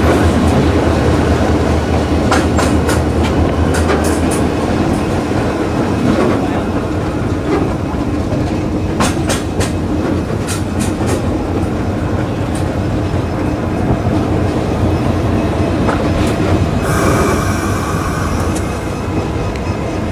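Train rolling slowly, heard from on board: a steady low engine drone, with the wheels clacking over rail joints in short clusters. Near the end there is a brief high squeal.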